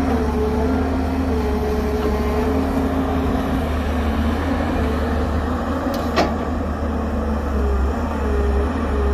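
Excavator's diesel engine running with a steady low rumble and a whine that wavers in pitch as the hydraulics work, with one sharp metallic clank about six seconds in.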